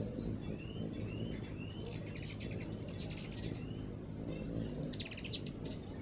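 Hummingbirds calling: a few short rising chirps, then bursts of rapid, high chattering about two, three and five seconds in, over a steady low background rumble.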